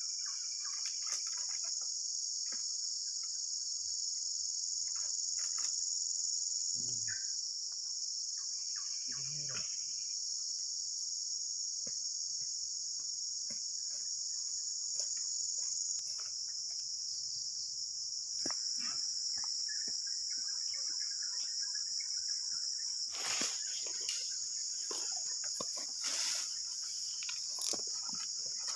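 Steady, high-pitched chorus of insects, with scattered clicks and a few louder knocks near the end.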